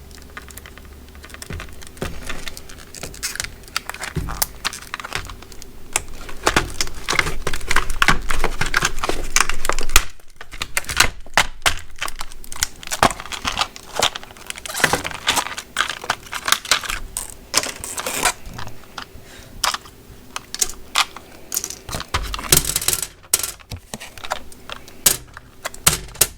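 Hard plastic blister packaging being cut and pried open by hand, a long run of clicks, crackles and rustling, loudest for a few seconds near the middle before stopping abruptly.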